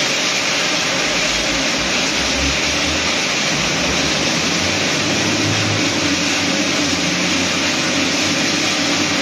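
Steady, even machine noise: a constant hiss with a low hum underneath.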